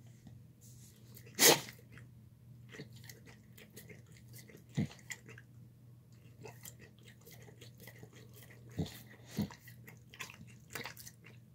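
A dog eating a soft meal of chicken and rice from a bowl: wet chewing, licking and smacking in short irregular clicks. One much louder sudden sound comes about a second and a half in, over a steady low hum.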